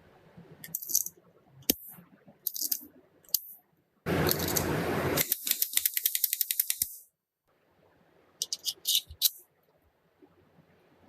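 Metal clicks and rattles from a pistol being handled. Several separate clicks, then a loud rasping burst about four seconds in, followed by a fast run of clicks that slows and stops, and a few more clicks a little later.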